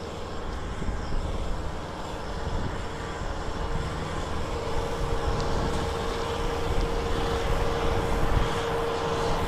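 Kubota M6040SU tractor's four-cylinder diesel engine running steadily under load as it drives through deep mud. A steady whine runs over the engine sound and grows stronger from about halfway through.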